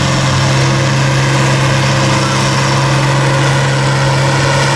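Farmall tractor engine working hard under full load as it drags a weight-transfer pulling sled, a loud, steady drone holding one pitch.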